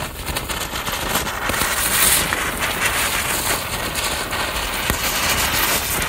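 Small ground-spinner fireworks spinning on asphalt and spraying sparks: a continuous hissing crackle with scattered sharp little pops.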